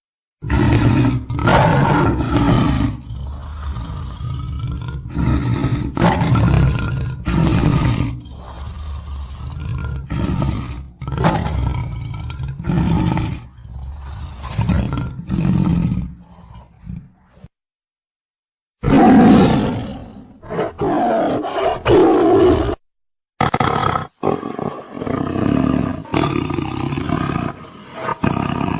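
Tiger roaring over and over, a run of loud roars a second or two apart, broken twice by brief spells of dead silence in the second half.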